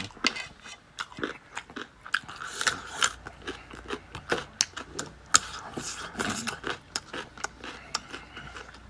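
A person chewing crunchy food, with many sharp, irregular crunches several times a second.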